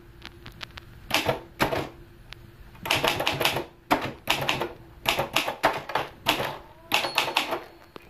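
Royal Safari II manual portable typewriter being typed on: quick runs of key strikes with short pauses between them.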